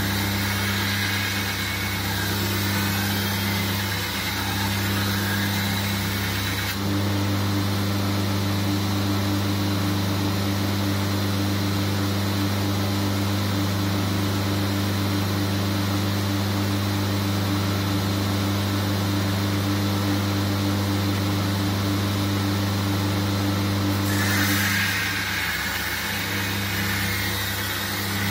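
Belt grinder's electric motor running with a steady hum while the edge bevel of a steel sabre blade is ground on the abrasive belt. Grinding hiss of steel on the belt for the first several seconds and again from about four seconds before the end; in between, the motor runs on alone with nothing against the belt.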